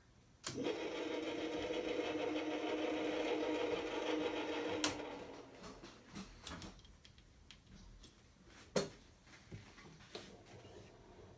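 Arboga UM-400 milling machine's motor switched on with a click, running steadily for about four seconds, then switched off with another click. A few scattered clunks follow.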